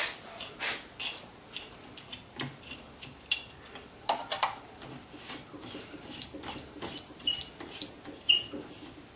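Hands rubbing and turning a freshly sanded wooden dowel on the pivot pin of a sanding jig: irregular short rubbing and scraping strokes with light wooden knocks, and two brief squeaks near the end.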